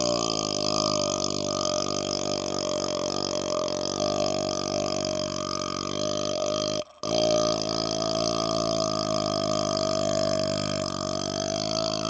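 A man's long, drawn-out belch, low and steady in pitch, broken by a momentary gap about seven seconds in before it carries on.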